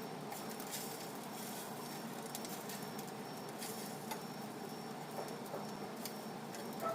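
Food cooking in a pan: a steady hiss with scattered small crackles and ticks, and a brief clink near the end.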